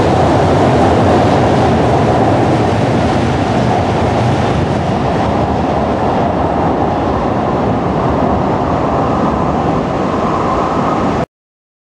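N700 series Shinkansen train running out along the platform, a loud steady rumble of running noise that slowly fades as the train draws away. The sound cuts off abruptly about eleven seconds in.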